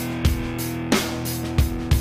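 Background music: a rock track with strummed electric guitar and a steady drum beat.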